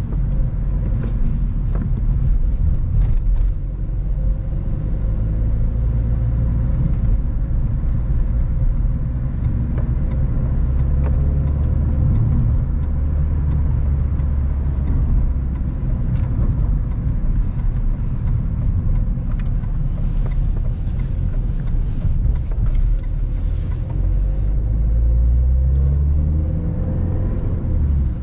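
Car driving, heard from inside the cabin: steady low engine and road rumble with a few sharp knocks and rattles from bumps in the first few seconds. The engine note rises near the end as the car accelerates.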